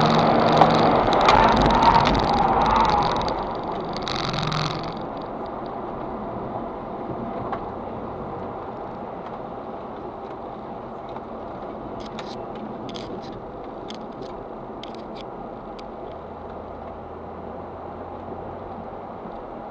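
Audi S4 B5's 2.7-litre twin-turbo V6, heard from inside the cabin, running hard for the first few seconds. About five seconds in the engine noise drops away, and the car goes on at a steady, quieter cruise with road noise and a few light clicks.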